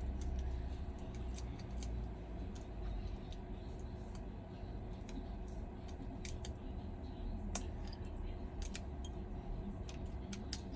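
Small scattered clicks and taps of metal tools and small phone parts being handled during an iPhone repair, over a steady low hum. One click about seven and a half seconds in is sharper than the rest.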